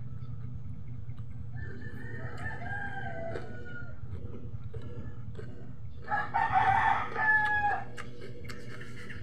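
A rooster crowing twice: a fainter crow about two seconds in, then a louder one about six seconds in, lasting nearly two seconds. A steady low hum runs underneath.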